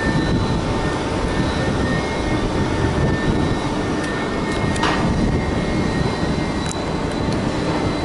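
Steady drone of crane machinery running, with faint steady high whine tones and a couple of light clicks around the middle.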